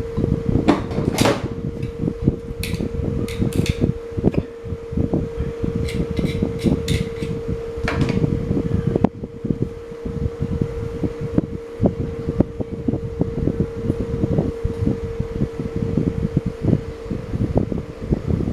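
Electric standing fan running, with a steady motor hum and its airflow buffeting the microphone. Several sharp clicks come in the first half.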